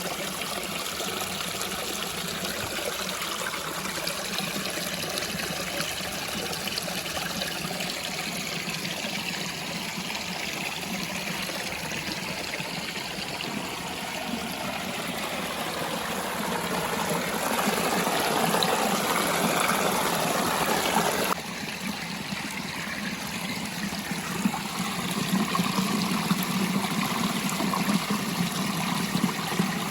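Waterfall running steadily. It grows louder for a few seconds past the middle, then drops back suddenly at a cut.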